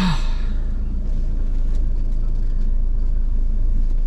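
Volvo 480's engine running steadily while the car is driven slowly, a low even rumble with no change in pace.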